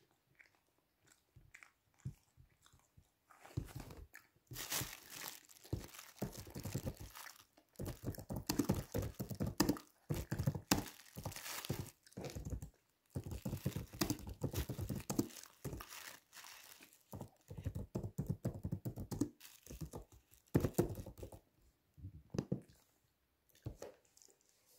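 Paper tissue being crumpled and handled close to the microphone: a dense, irregular run of crinkles and crunches that starts a few seconds in and dies away a couple of seconds before the end.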